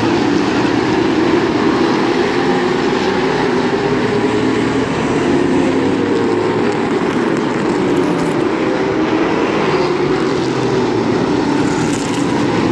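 A pack of Limited Late Model stock cars racing, their V8 engines running loud and steady at speed, with engine pitches rising and falling as cars pass.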